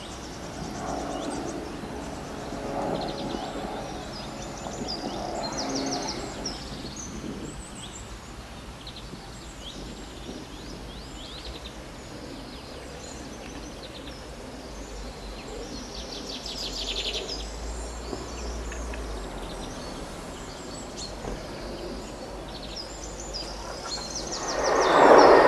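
Songbirds chirping and trilling over a steady outdoor background noise. Near the end a loud rushing noise swells up and covers the birds.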